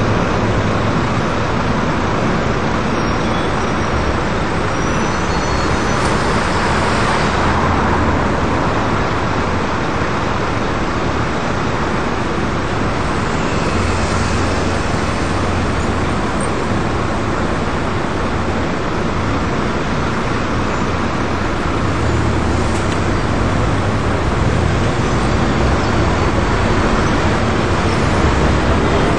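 City road traffic: cars, vans and double-decker buses running and moving slowly through a junction. Under the steady noise, a low engine hum from a nearby vehicle swells and fades several times.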